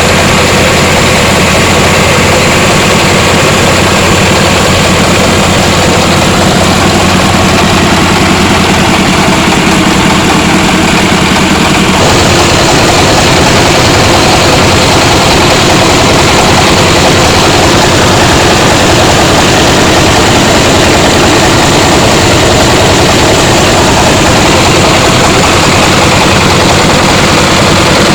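Mobile three-wheeled rice huller's engine and machinery running loud and steady, the sound shifting about twelve seconds in.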